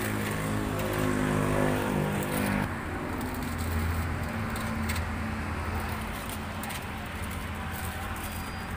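A short tune plays and cuts off about two and a half seconds in. A steady low hum like a running vehicle engine follows, with a few faint clicks.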